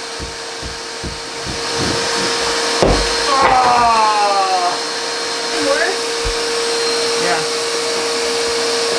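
Vacuum cleaner running steadily with a constant whine, its hose held to a drywall ceiling to suck up dust. During the first few seconds a hand drywall jab saw rasps through the ceiling in short strokes.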